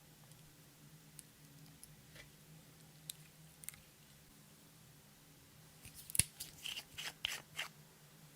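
Hands working clear slime and makeup: a few faint scattered clicks, then a short run of sharp clicks and crackles about six seconds in.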